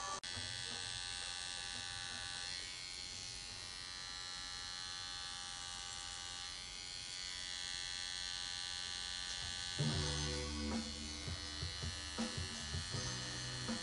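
Pen-style rotary tattoo machine buzzing steadily as its liner needle works into the skin. From about ten seconds in, irregular low thuds sound under the buzz.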